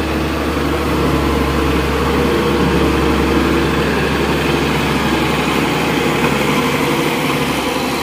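New Holland TC5.30 combine harvester running close by: a loud, steady engine drone with no change in pace.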